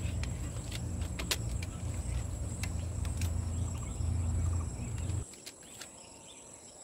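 Wind rumbling on the microphone outdoors, with a few light clicks and a steady high insect drone; the rumble cuts off abruptly about five seconds in, leaving the faint drone.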